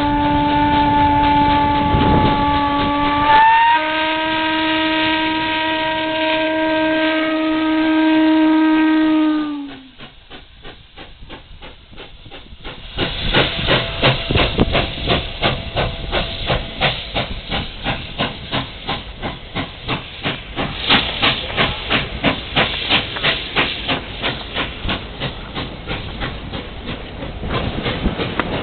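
Steam locomotive's chime whistle blowing two long blasts, the second sagging in pitch as it shuts off about nine seconds in. Then the locomotive's exhaust beat, about three chuffs a second, grows loud as the engine passes, and its passenger cars roll by near the end.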